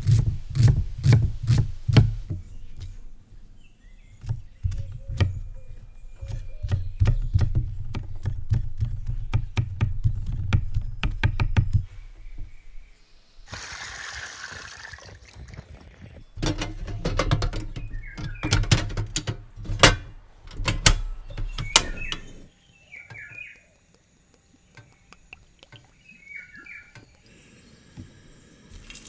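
Knife chopping an onion on a wooden stump chopping block, a quick run of thuds. About thirteen seconds in, water pours and drains from sliced eggplant being rinsed in a strainer, followed by another run of knife strikes on the board. Birds chirp in the quieter last part.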